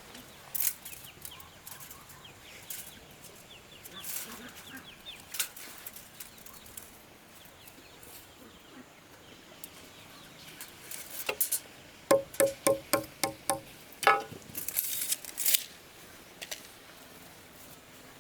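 Chickens clucking: a quick run of about seven clucks past the middle, then a single louder call, among scattered light taps.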